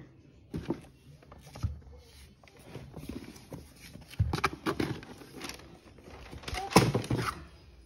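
Handling noise: a pair of leather sneakers, tissue paper and a cardboard shoebox being moved about, with scattered rustles and light knocks and one sharper knock near the end.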